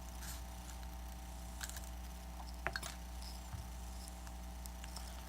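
Faint scattered clicks and scrapes of plastic pry tools working between an iPad's glass and its frame, over a steady electrical hum.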